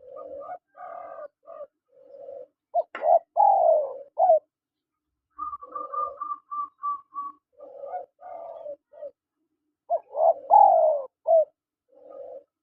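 Spotted doves cooing, repeated low phrases of several notes with short pauses between them. About five seconds in, a quick run of short, higher notes sounds over the coos.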